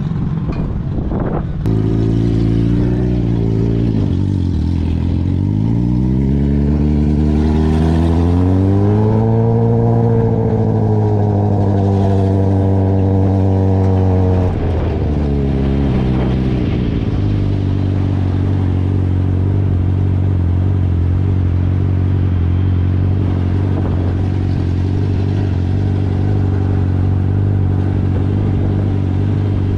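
A motor vehicle engine running under way. Its pitch dips, then climbs and holds for several seconds, drops sharply about halfway through, and then runs steady to the end.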